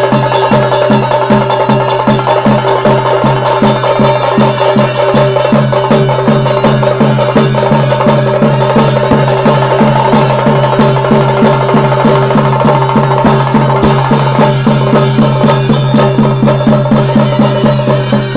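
Chende drums beaten with sticks in a fast, even rhythm of about three to four strokes a second, over a steady held tone.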